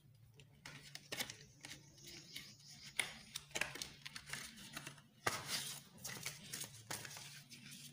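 Paper and cardboard packaging being handled: the white card insert and paper packet of a phone box rustling and scraping, with scattered light taps and clicks and the loudest rustle about five seconds in.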